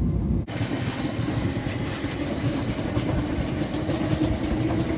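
An abrupt edit about half a second in, then a Class 707 electric multiple unit running: a steady rumble of wheels on rails, with a steady hum that grows a little stronger near the end.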